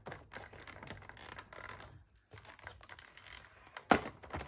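Small items being handled in a nail kit box: a run of light irregular clicks and taps, with one sharper, louder knock about four seconds in.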